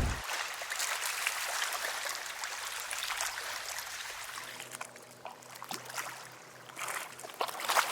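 Water trickling with many small drips and splashes, quieter in the middle and livelier again near the end.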